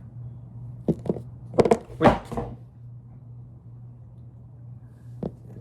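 A few light clicks and taps of small plastic toy figures being handled and set down, over a steady low hum.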